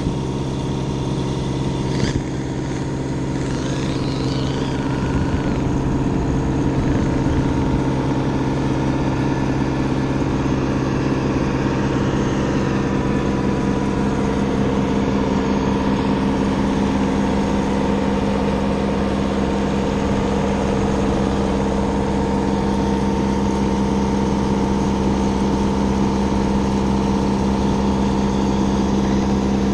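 Radio-controlled rock crawler's electric motor and gearbox whining steadily while it drives, heard up close through the truck-mounted camera, with a sharp knock about two seconds in.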